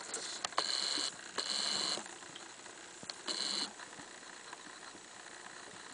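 African pygmy hedgehogs mating: three short hissy bursts, about half a second each, in the first four seconds, with a few sharp clicks among them. After that only a faint steady hiss remains.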